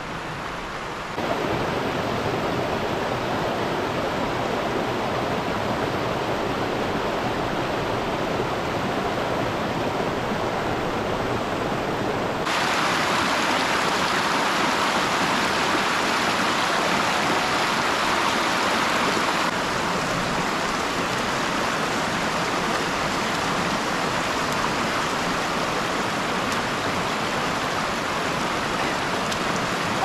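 Shallow creek running over rocks: a steady rush of water whose loudness and brightness change suddenly about a second in, again near the middle and once more about two-thirds of the way through.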